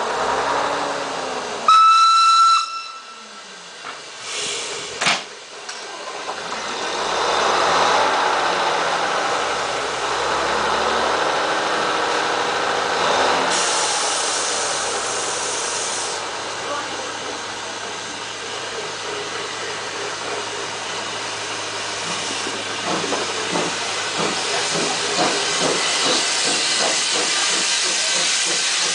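A steam whistle sounds once, briefly, as the train is flagged away. Then steam hiss and the exhaust beats of a small saddle-tank steam locomotive are heard as the train pulls out, with the beats growing closer together near the end as the engine comes past. A single sharp knock comes about five seconds in.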